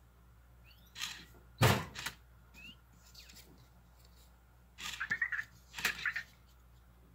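Handling noises as a plastic Anki light cube is picked up and set down on a glass tabletop: a single heavy thud about a second and a half in, then two quick clusters of clicks and clatter near the end as the cube touches the glass.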